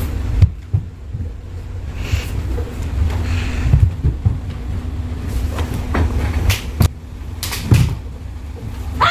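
Bare feet stepping and stamping on a wooden floor during taekwondo footwork: scattered sharp thumps and knocks over a steady low rumble and hum of the hall.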